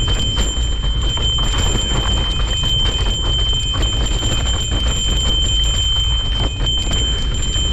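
Mountain bike descending a dirt forest trail: a steady low rumble of wind and tyres on the microphone, with the bike rattling over bumps and roots. A steady high-pitched whine runs through it all.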